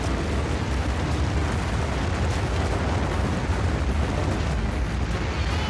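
Loud, steady deep rumble of rushing floodwater and mud, heaviest in the bass, with no separate impacts.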